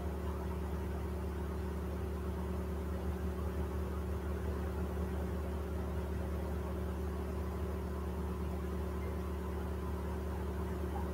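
A steady low hum, like a running motor or electrical appliance, holding even with no change in pitch or level.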